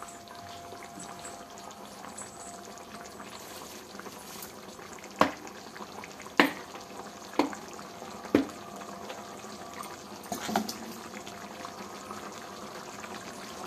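Chicken curry simmering in an iron kadai, its watery gravy bubbling steadily, with a handful of sharp pops in the middle stretch.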